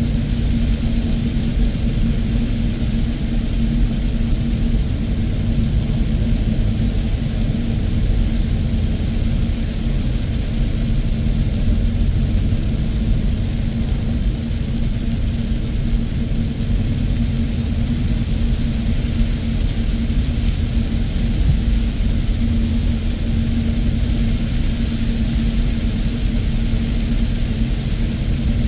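Car driving on a rain-soaked road heard from inside the cabin: steady low road and engine rumble with a constant hum, and the hiss of tyres on wet pavement and rain.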